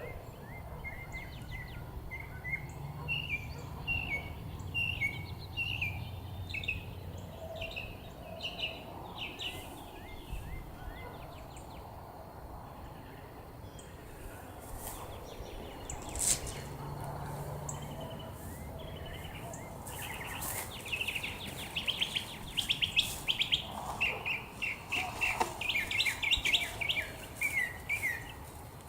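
Songbirds chirping in quick repeated series of short high notes, busiest in the second half, over a low rumble of wind on the microphone. A single sharp click comes about halfway through.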